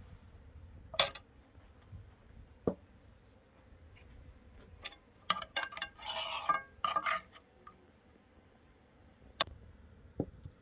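Kitchen dishes and utensils clinking and knocking: a few separate clinks, with a busier run of clatter in the middle.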